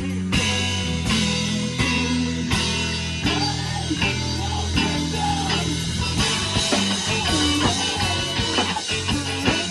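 Live rock band playing an instrumental passage: guitars and a drum kit, with low notes held over a steady run of drum hits.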